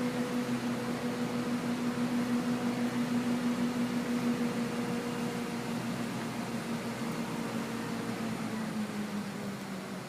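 Engine of tree-removal machinery running with a steady hum, its pitch easing down slightly near the end.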